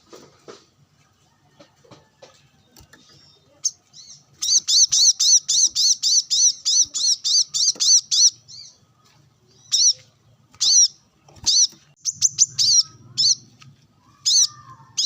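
Brown-throated sunbird calling with high, sharp chirps. About four seconds in it gives a fast run of about five chirps a second for some four seconds, then single chirps roughly a second apart.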